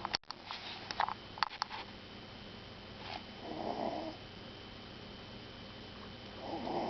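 Puppy snoring: two snore breaths about three seconds apart, one near the middle and one at the end. A few sharp clicks come in the first second and a half.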